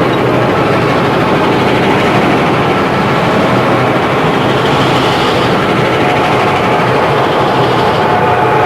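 Train sound effect: a loud, steady rumble of a train running, with no clear beat.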